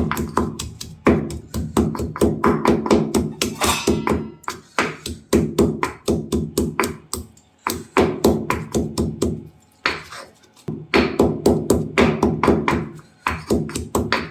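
Pestle pounding ginger and whole spices in a mortar: rapid ringing strikes, about four a second, in runs broken by short pauses.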